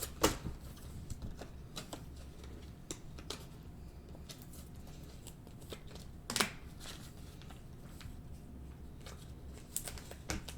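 Trading cards being handled and slid against one another: a few soft swishes and taps, the loudest just after the start and about six seconds in, over a faint steady low hum.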